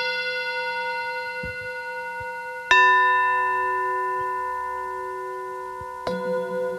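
Tibetan metal singing bowl struck and left to ring, with long slowly fading tones. It is struck again about a third of the way in and again near the end, and each strike adds fresh tones. After the last strike the ring wavers in a slow pulsing beat.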